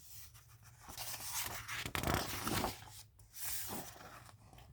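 Paper rustling and rubbing as the pages of a picture book are handled and turned, in uneven stretches with the busiest part from about one to three seconds in.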